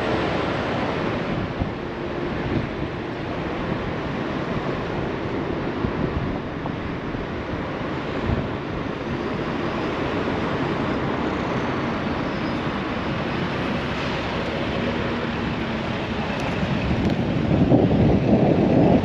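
Wind buffeting the microphone, with a low vehicle engine rumble underneath; it grows louder near the end.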